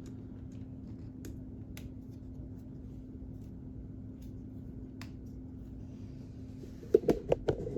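Plastic K'nex parts being handled, with a few faint, scattered clicks and then, near the end, a quick run of louder clicks and knocks as a support piece is fitted into place. A low steady hum runs underneath.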